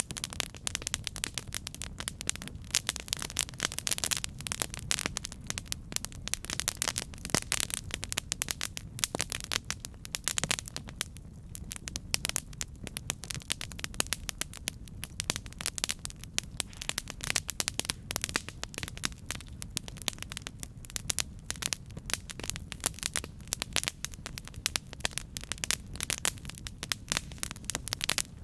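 Campfire crackling: dense, irregular pops and snaps over a low steady rumble of burning, easing off briefly about halfway through.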